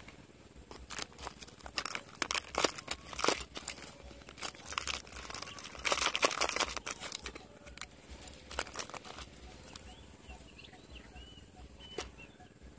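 Fishing lures and hooks clicking and rattling in a plastic tackle box as gloved hands sort through it: a run of irregular clicks and rustles, loudest about six seconds in, then quieter.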